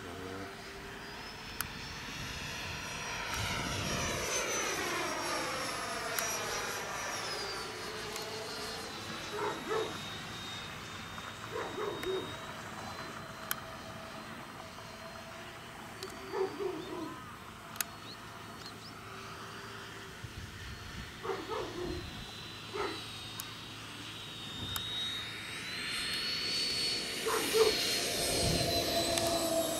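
Radio-controlled F-15 model jet in flight: a high whine that sweeps in pitch as the jet passes overhead a few seconds in, then grows louder near the end as it comes in to land.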